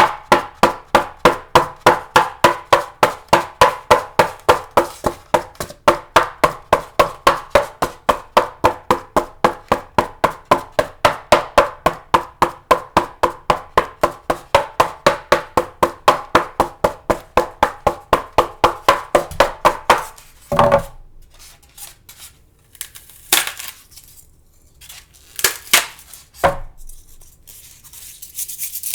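Styrofoam rubbed rapidly back and forth, squeaking in quick even strokes, about four a second, for some twenty seconds. Then a few separate sharp squeaks or cracks with pauses between, and a hissing rub starts near the end.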